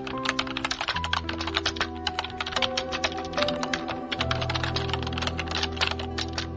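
Rapid computer-keyboard typing clicks, a typing sound effect that goes with text being typed onto the screen, over background music of sustained chords that shift about a second in and again around four seconds in.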